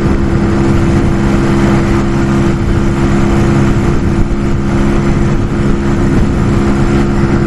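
Brixton Felsberg 125's single-cylinder four-stroke engine held at full throttle near top speed, running steadily at high revs with little change in pitch as the bike creeps from about 92 to 93 km/h. Wind rushes over the microphone throughout.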